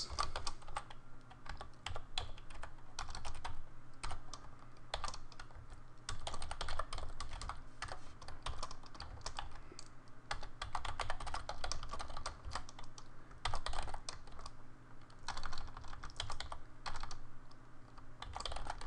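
Typing on a computer keyboard: quick clusters of keystrokes broken by short pauses, over a faint steady low hum.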